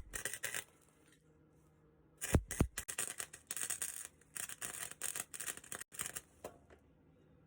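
Electric arc welding crackling in short stop-and-start bursts as a steel exhaust tailpipe is welded: a brief burst at the start, then a longer run of crackling from about two seconds in to past six seconds, with a couple of low thumps as it starts up again.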